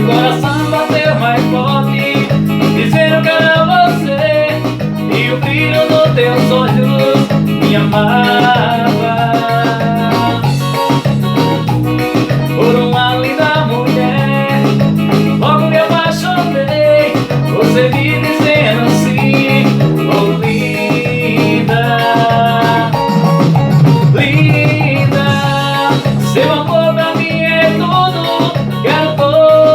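Brega-style band music: keyboards and a plucked-string lead melody over a steady beat.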